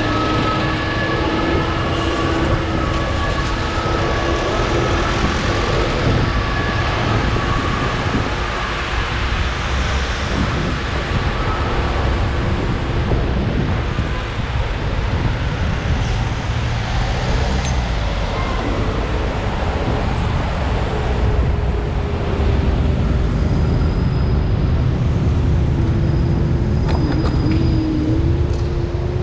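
Lime electric rental scooter being ridden: a continuous rumble of wind and wheels on the road, with a steady motor tone that drifts slowly in pitch and dips briefly near the end.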